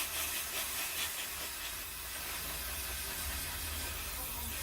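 Aerosol brake cleaner spraying in one long steady hiss, strongest at the start, washing solder flux off a freshly soldered ECU circuit board.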